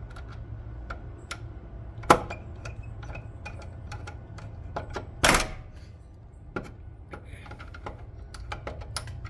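Screwdriver tightening a terminal lug screw on a wire in a Square D three-phase disconnect: scattered small metal clicks and ticks, with a sharp click about two seconds in and a brief louder noise a little after five seconds, over a steady low hum.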